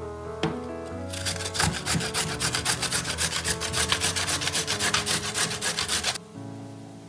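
Carrot being grated on a stainless steel box grater: quick, even rasping strokes, about four a second, starting about a second in and stopping near the end.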